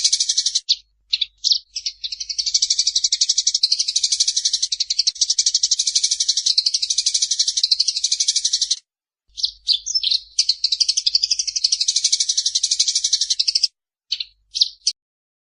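Eurasian tree sparrow chirping in fast, unbroken runs of high notes, with a short break about nine seconds in and a few brief bursts before it stops near the end.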